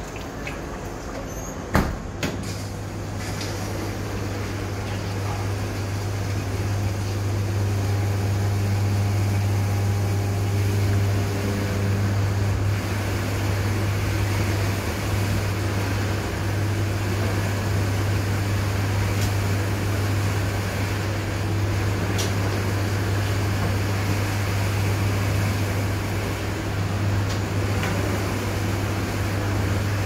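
Hobart commercial undercounter dishwasher: a clunk of the door shutting about two seconds in, then the wash cycle running, a steady low motor hum under an even rushing noise.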